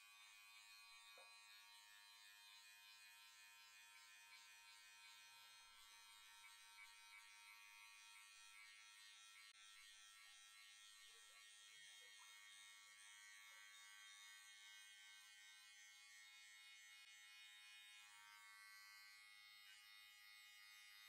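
Barber's electric hair clippers running steadily with a faint, even buzz while cutting a skin fade.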